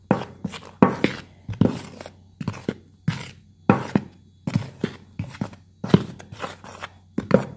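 A utensil stirring dry flour in a plastic mixing bowl, knocking against the bowl about twice a second, each knock with a short low ring.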